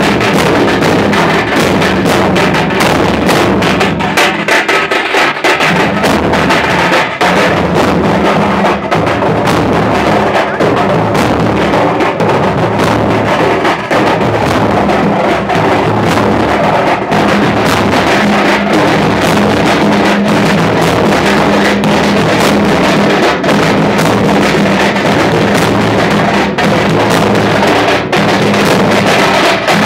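Loud, continuous drumming from a group of drummers beating large metal-shelled drums with sticks, a dense stream of strokes with no break.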